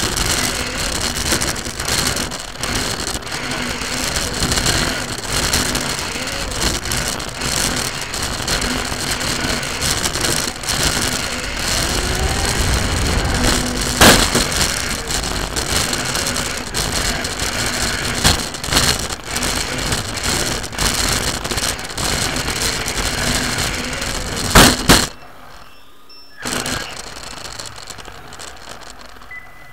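Onboard sound of an RC car driving on a hall floor: the chassis rattles and crackles over a faint rising and falling motor whine. A hard knock about 14 s in as the car hits the wooden track boards, and another pair of sharp knocks near 25 s, after which the sound drops to a much quieter hum.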